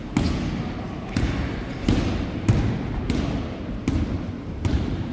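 A basketball dribbled on a gym floor: about seven bounces at a steady pace, each ringing briefly in the hall.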